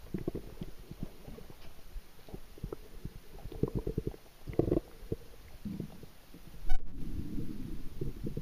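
Underwater sound picked up by a camera below the surface: muffled, low rumbling and crackling of moving water, with a sharp knock about two-thirds of the way through.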